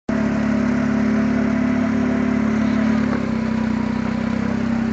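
Rangcar off-road buggy's engine running steadily, heard from the seat, its note dropping a little about three seconds in.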